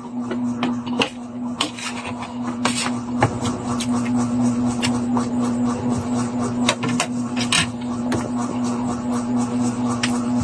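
Spoon and fork clicking and scraping against a plate, with chewing, many short irregular clinks over a steady low hum.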